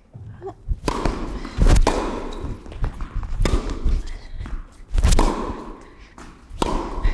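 Tennis rally: sharp racket-on-ball strikes and ball bounces, one every second or two, each ringing on in the large indoor hall.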